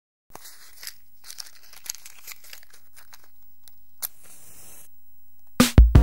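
Soft, irregular crinkling and crackling for about three seconds, then a click and a brief tearing rustle about four seconds in. Music with a steady beat starts just before the end.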